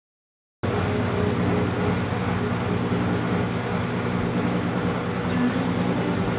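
Metal lathe running steadily, a machine hum made of several steady tones, cutting in suddenly about half a second in after dead silence.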